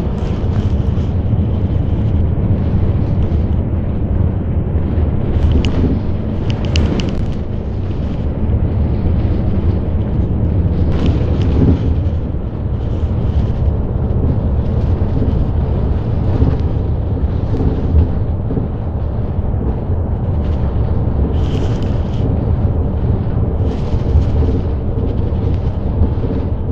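Cabin noise of a moving bus: a steady low rumble of engine and road, with a few brief sharper noises from the fittings.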